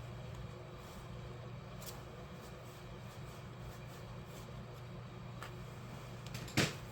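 Small parts or tools being handled during a dental handpiece repair: a couple of faint clicks and one sharper knock near the end, over a steady low hum.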